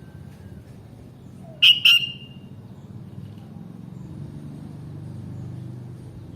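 Sooty-headed bulbul giving two loud, sharp whistled call notes in quick succession about two seconds in, over a steady low rumble.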